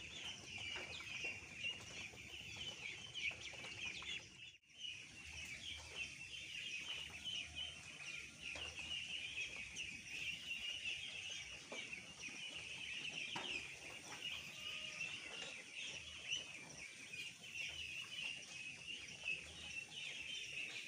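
A large flock of two-week-old ducklings peeping continuously, a dense chorus of overlapping high calls that breaks off for a moment about four and a half seconds in.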